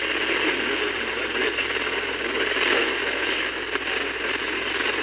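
Radio static from a weakly received broadcast: a steady hiss squeezed into the narrow range of a radio's audio, with no clear voice coming through.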